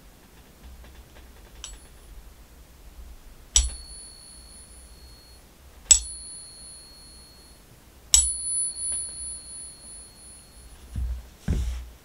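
A silver Peace dollar balanced in a Pocket Pinger coin holder, tapped three times a couple of seconds apart, each tap giving a clear high ring that fades over a second or two, the last ringing longest. It is the ring of a genuine 90% silver coin, which the ping-test app passes three out of three. Two dull knocks near the end.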